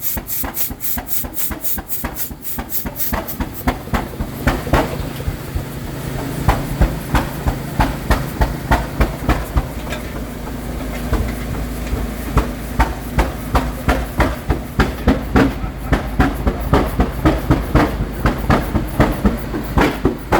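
40 HP crude-oil hot bulb engine starting up: a quick run of even hissing pulses at first, then from about four seconds in a heavy, regular knock about twice a second over a low rumble as it runs.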